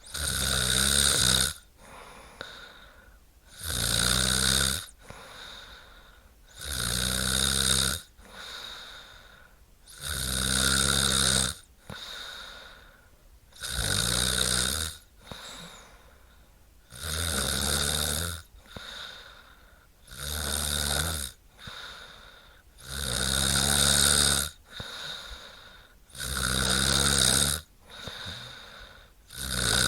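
A woman snoring steadily: a loud, rattling snore about every three and a half seconds, each lasting about a second and a half, with quieter breathing in between.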